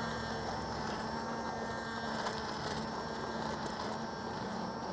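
Immersion blender motor running steadily as it purees a pot of cooked cranberries and barbecue sauce into a smooth sauce.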